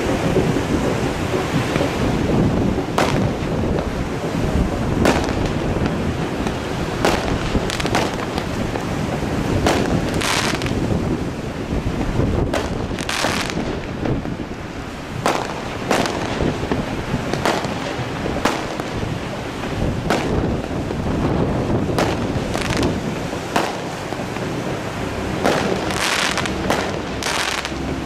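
A 25-shot firework cake firing its shells one after another, a sharp report about every one to two seconds, some followed by a longer high hiss, over a steady background rush.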